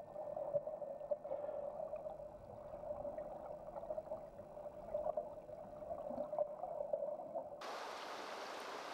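Flowing stream water heard underwater: a muffled, gurgling wash with a steady midrange hum. About seven and a half seconds in it cuts to the open-air hiss of the shallow river running over stones.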